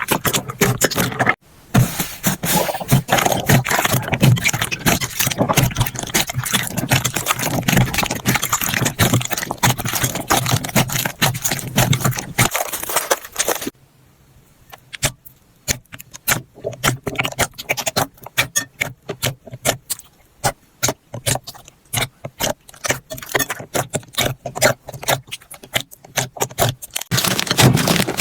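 Slime being squeezed and pressed by hand, making dense crackling and clicking. From about halfway it thins to scattered pops and clicks, and turns dense again near the end.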